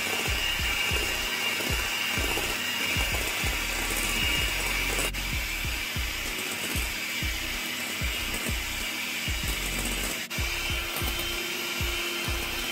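Electric hand mixer running, its two beaters whisking eggs in a glass bowl with a steady motor whine.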